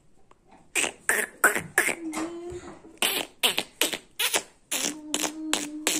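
A quick, irregular run of about fourteen sharp clicks in two bursts, with a short low hum held twice among them.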